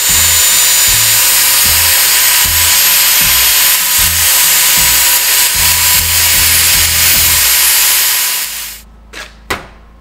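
Angle grinder running against a strip of sheet steel, a steady high whine with hiss that stops about eight and a half seconds in, followed by two short knocks.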